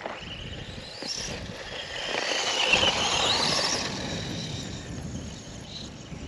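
Battery-powered HBX Destroyer RC truck's electric motor and drivetrain whining as it drives, the pitch rising and falling with the throttle, loudest in the middle.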